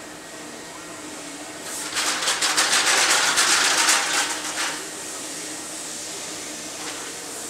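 Compressed-air blow gun on a shop air hose, blasting in one hissing burst of about three seconds that starts a couple of seconds in and then stops. A faint steady hum runs underneath.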